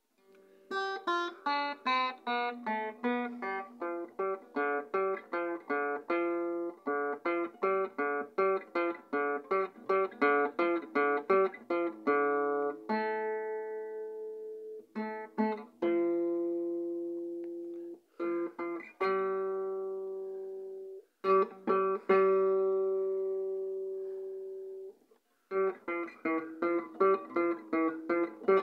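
Acoustic guitar played note by note: a quick run of picked notes, then slower single notes and chords left to ring out, with a few brief breaks, and quick picking resuming near the end.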